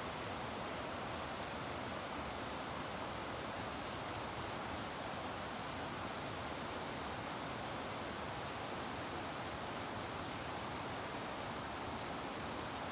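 Steady outdoor ambience by a pond: an even, unchanging hiss with no distinct events.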